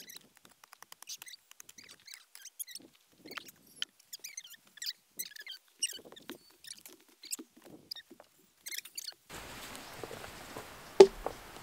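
Soil and roots crackling and scraping as red earth is dug and pulled apart by hand, a quick irregular run of small crunches and scratches that stops about nine seconds in. A single sharp knock comes near the end.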